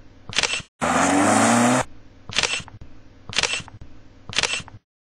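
Race car engine revving hard for about a second with tyre noise, cut in sharply, among short sharp clicks that come about once a second. The sound cuts out abruptly near the end.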